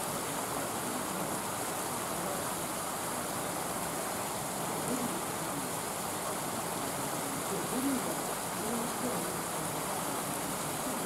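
Steady outdoor rushing noise with faint, distant voices coming through now and then.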